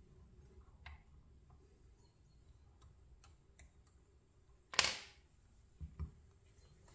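Faint clicks and taps of small metal parts being handled as a pin is fitted into a die-cast model crane's boom cylinder mount. A sharp click comes a little under five seconds in, the loudest sound, then two dull knocks about a second later.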